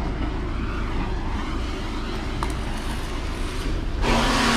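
Septic pump truck's engine and vacuum pump running steadily with a low rumble. About four seconds in, a loud hissing rush starts.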